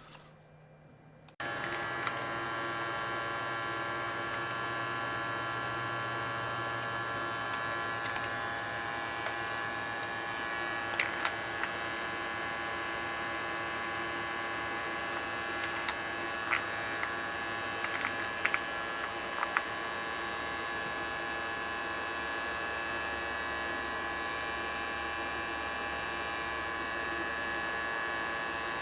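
Small electric vacuum pump for filament storage bags switching on about a second in and running with a steady, even hum as it draws the air out of a resealable bag. A few small clicks come through around the middle.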